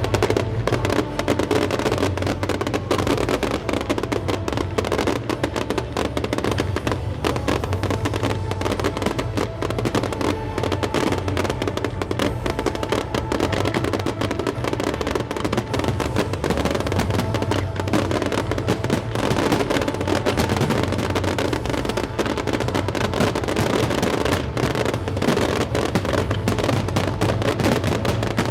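Fireworks crackling and popping in a dense, continuous barrage, with music playing alongside.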